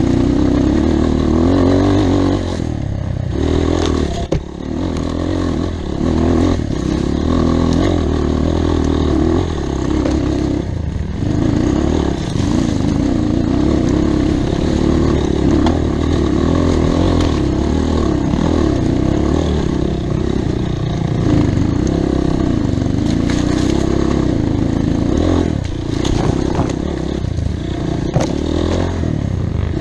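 Off-road motorcycle engine running continuously, its pitch rising and falling with the throttle as it is ridden over a trail.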